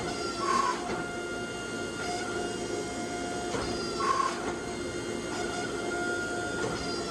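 Forge running with a steady mechanical hum of several pitches, a short chirp breaking in about every three and a half seconds, while a stacked 15N20 and 1084 steel billet is held in it with tongs and brought up to forge-welding heat.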